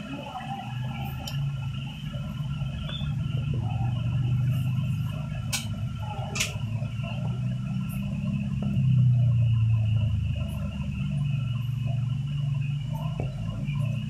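A low, steady hum that swells and fades, with a few sharp clicks, two of them about five and a half and six and a half seconds in.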